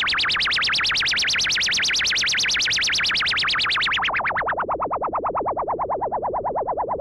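Welson Syntex analog synthesizer sounding its noise generator through the filter, with the LFO sweeping the filter to make a fast, even pulsing whoosh of about ten pulses a second. About four seconds in, the filter is turned down and the pulses become darker and duller.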